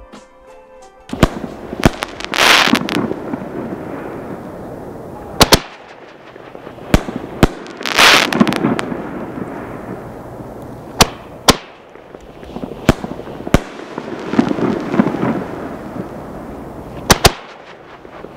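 Kabushi 6-inch XXL canister shells being fired: a series of sharp bangs, several in close pairs, with four longer rushing bursts of about a second each between them.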